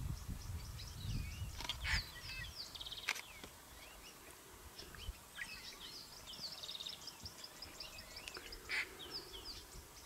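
Birds calling in the bush: many short chirps and whistles, a quick rattling trill now and then, and a few sharper, louder calls. A low rumble underneath fades out in the first couple of seconds.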